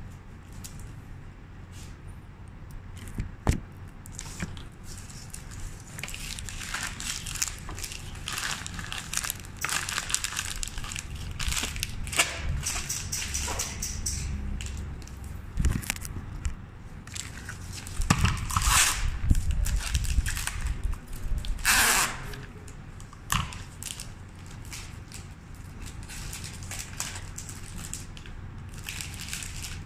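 White wrapping paper rustling and crinkling in irregular bursts as it is folded around a flower bouquet, loudest a little past halfway, with one sharp knock a few seconds in.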